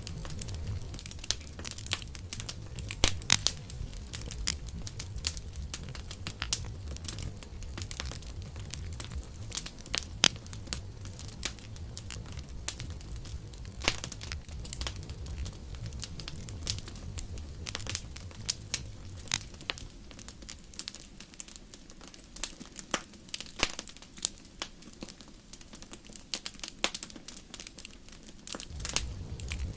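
Wood campfire crackling, with frequent sharp pops and snaps over a low rumble of flame; the rumble drops away for several seconds in the second half while the crackling goes on.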